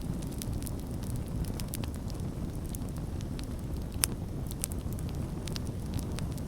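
Campfire burning: a steady low rumble under scattered crackles and pops, with one sharper pop about four seconds in.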